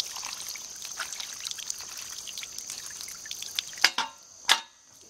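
Water pouring and splashing out of a primed deep-well hand pump's tee spout onto the well casing as the sucker rod is pulled up, tapering off about four seconds in. Two sharp clicks come near the end, and crickets chirr steadily throughout.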